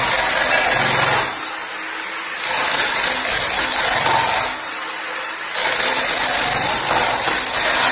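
Bosch 16 kg electric breaker on a Makinex trolley hammering with a tile-smasher head, lifting and cracking floor tiles off the screed. It runs in bursts, with two short pauses of about a second, one near the middle and one just before that.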